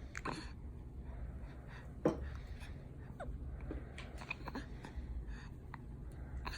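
Hiccups of a seven-week-old: one sharp hiccup about two seconds in, with faint small clicks and rustles after it.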